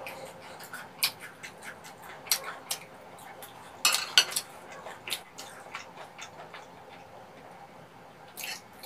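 Light clicks and taps of wooden chopsticks and a metal spoon against ceramic plates, irregular, with a louder cluster of clicks about four seconds in.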